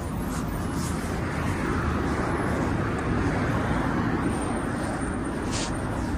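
City road traffic: a steady rumble of passing vehicles, swelling a little a few seconds in.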